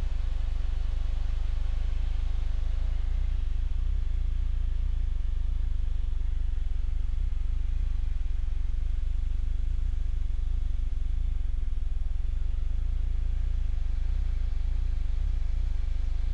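Steady low drone of a piston-engine aircraft in cruise, heard from inside the cockpit.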